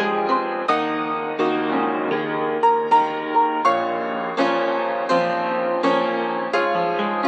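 Piano playing an instrumental passage, notes and chords struck one after another and left to ring.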